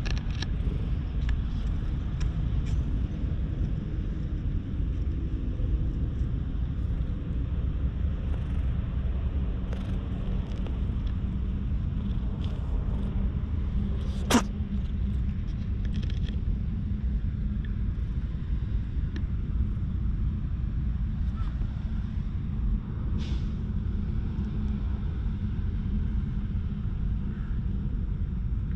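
Steady low outdoor rumble throughout, with a single sharp click about halfway through.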